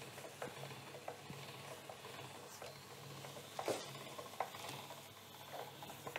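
Hand-cranked pasta machine cutting a dough sheet into fettuccine, faintly clicking and ticking as the crank and cutter rollers turn, with one louder click a little under four seconds in, over a steady low hum.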